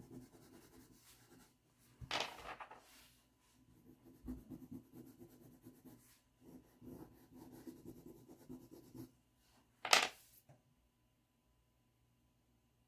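Pastel stick rubbing and scratching on drawing paper in faint, uneven stretches of shading strokes, with one sharp knock about ten seconds in.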